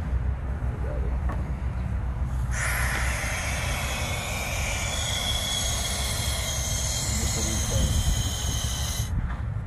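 Compressed gas hissing steadily from a cylinder through the regulator and fill hose into a dry-rotted latex balloon. The hiss starts suddenly about two and a half seconds in and is cut off about nine seconds in.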